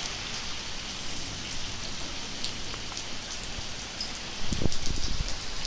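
Light rain and dripping water pattering: a steady hiss with scattered small drop ticks. There is a brief louder low rumble about four and a half seconds in.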